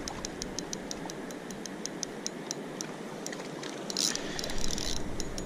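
Spinning reel clicking in an even run of short ticks while a big fish is played on the line, about six ticks a second at first and slowing to two or three. A short scraping rustle comes about four seconds in.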